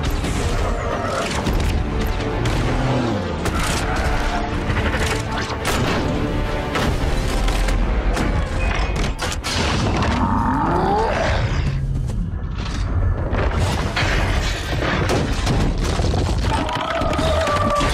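Action-film soundtrack: a music score under repeated explosions, booms and heavy impacts, with a rising whine about ten seconds in.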